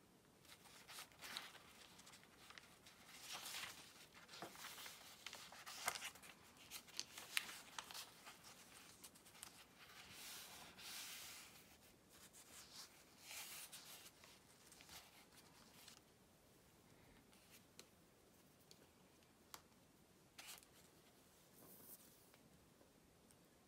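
Close-up paper rustling and crinkling as the pages of an old book are handled, turned and smoothed flat, with small clicks and taps among them; it is much quieter for the last several seconds, leaving only a few faint clicks.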